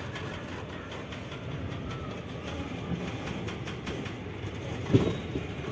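Passenger train coach rolling slowly out of a station, heard from inside: a steady rumble of wheels on the rails with light clicks, and a louder knock about five seconds in.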